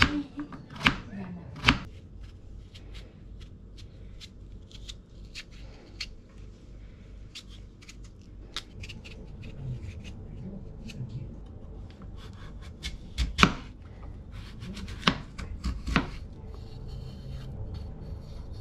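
Chef's knife cutting and paring daikon radish on a plastic cutting board: sharp knocks of the blade through the radish onto the board, a couple near the start and several more later on, with faint slicing ticks in between as the corners of the chunks are trimmed off for simmering.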